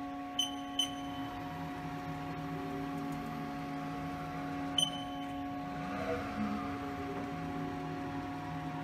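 Haas TM-1 CNC mill standing powered up, giving a steady hum made of several fixed tones. Three short high beeps come about half a second in, near one second, and about five seconds in.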